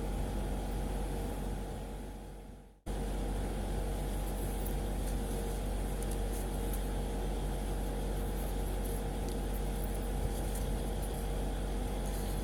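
Steady low hum with a hiss of room noise. It fades out just before three seconds in, cuts back in abruptly and then holds steady.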